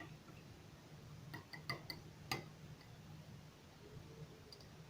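Faint, light clicks and taps of tableware, about five in quick succession between one and two and a half seconds in, the last the loudest.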